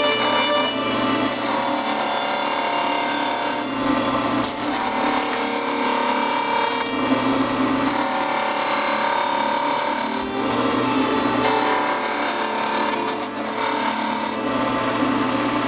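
Bench disc sander running with a steady motor hum while a wooden briar pipe blank is pressed against the spinning abrasive disc, giving a coarse sanding hiss. The hiss breaks off briefly about every three seconds as the blank is lifted and turned, while the motor keeps running.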